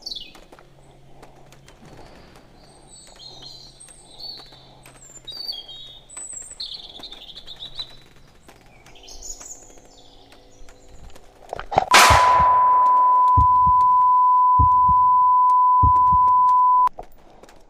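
Small birds chirping, then a sudden loud bang about two-thirds of the way in. Right after it comes a single steady electronic beep at one pitch, held for about five seconds and cut off sharply.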